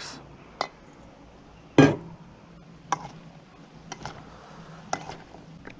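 A spoon clinking against a stainless steel mixing bowl while chopped fish and vegetables are stirred: uneven sharp clinks, roughly one a second, the loudest about two seconds in.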